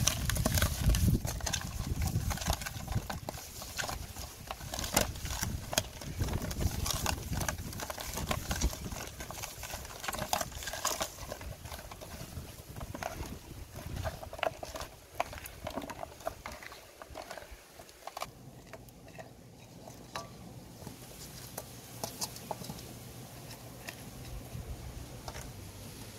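Hands rubbing coarse salt and chili flakes into whole climbing perch on a woven bamboo tray: scratchy rubbing with many small clicks and pats, heaviest at the start. It thins out in the second half as sliced bamboo shoots are handled, and a faint steady low hum comes in for the last several seconds.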